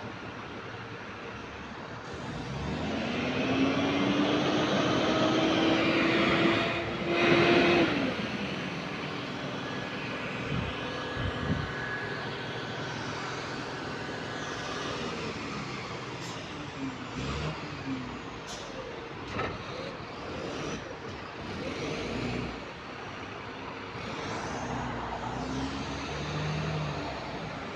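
Bus running in service, which the title says has a developing exhaust leak and a hydraulic cooling fan. Its drive climbs in a rising whine for several seconds, cut by a loud rush of air about seven seconds in, typical of an air brake. It then runs on more steadily with scattered clicks and rattles.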